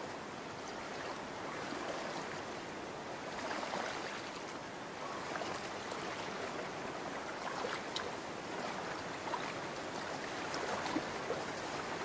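Shallow stream water running steadily, with a few small splashes.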